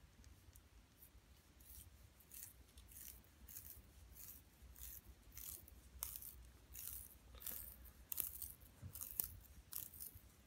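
A willow rod splitting into skeins as a wooden cleave is pushed down it: faint, short crackles of the wood tearing apart, sparse at first, then about two a second and louder from about six seconds in.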